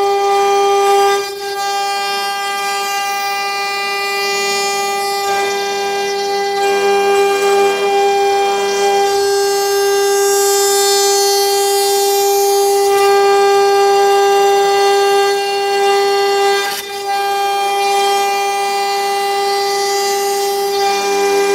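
CNC router spindle whining at a steady high pitch as its end-mill cuts a carved wooden panel out of the board, with a hiss of cutting over it; the whine dips briefly twice, about a second in and again near the end.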